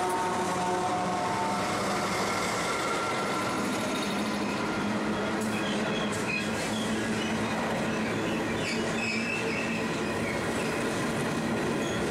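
A freight train passing close by. The diesel-electric locomotive's engine note fades within the first couple of seconds, leaving the steady rolling rumble of bulk hopper wagons on the rails. High wheel squeals come and go through the middle.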